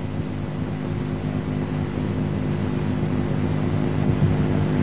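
A steady low hum over hiss, slowly growing louder, with no voice reciting.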